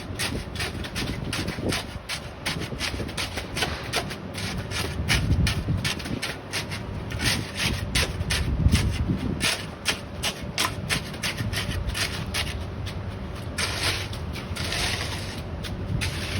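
A concrete screed being worked back and forth over wet concrete: a fast, rhythmic run of short scraping strokes over a low rumble.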